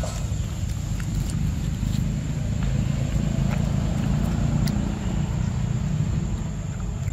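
A steady low rumble that swells in the middle, with a few faint, short wet clicks of a macaque chewing soft fruit close by.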